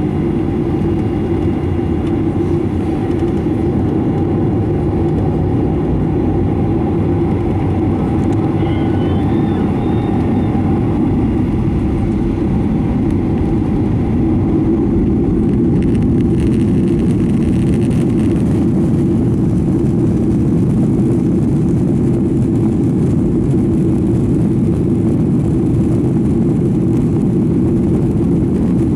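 Boeing 737-900ER's CFM56-7B jet engines running, heard inside the passenger cabin as a loud, steady low rumble that grows slightly louder about halfway through.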